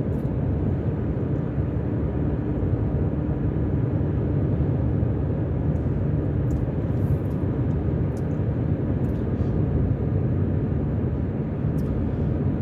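Steady road noise of a car driving on a freeway, heard from inside the cabin: a low rumble of tyres and engine, with a faint steady hum that fades out near the end.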